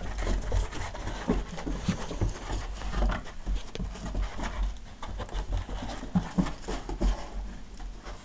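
Small dog chasing its tail in tight spins on carpet: quick panting and scuffling, with irregular low thumps from its paws and body. The activity dies down near the end.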